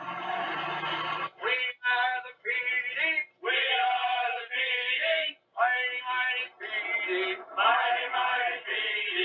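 Music with a male singing voice: a full opening chord for about a second, then sung phrases with short breaks between them, coming from a television.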